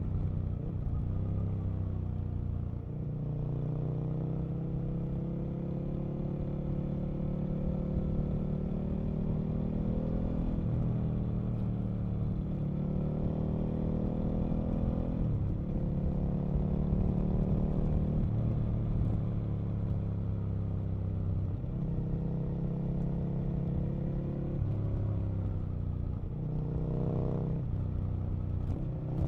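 Aprilia RSV Mille RP's V-twin engine running under way on the road, its note climbing under throttle and dropping sharply several times, about every four to six seconds. Near the end it rises quickly twice.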